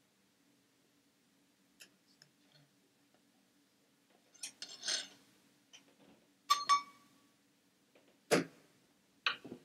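Kitchen utensils clinking and knocking against a mixing bowl while flour is worked into bread dough: scattered clicks, a clatter, two sharp clinks with a brief ringing tone, then a heavier knock and one more near the end.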